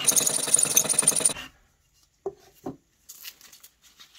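Steel hand file rasping in fast strokes across the head of a galvanized carriage bolt held in a bench vise, filing the domed top flat. The filing stops about a second and a half in. Two light metallic clinks follow, then faint handling noise.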